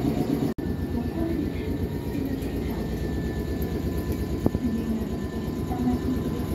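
Steady low rumble of a Nankai electric train standing at a station platform, with a faint steady whine above it. The sound drops out for an instant about half a second in, and there is a single sharp click near the end.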